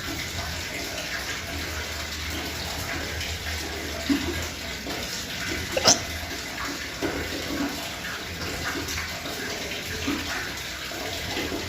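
Water running steadily from a tap, with a short sharp knock about six seconds in.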